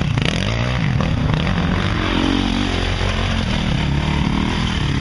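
Trail bike engines revving up and down under load as the bikes climb a steep, rutted dirt track.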